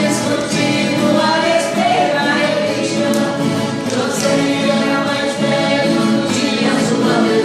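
Several voices singing a caipira cururu together to viola caipira accompaniment.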